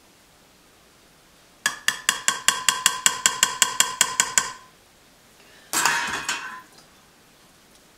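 A metal serving spoon tapped rapidly against a ceramic baking dish, about six ringing clinks a second for nearly three seconds, then a brief clatter of dishware about a second later.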